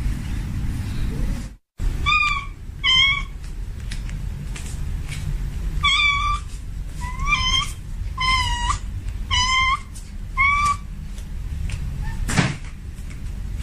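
A cat meowing: about seven short, high meows, some rising and some falling in pitch, coming at irregular intervals over a steady low rumble. The sound cuts out briefly just before the meows begin, and a short rushing noise comes near the end.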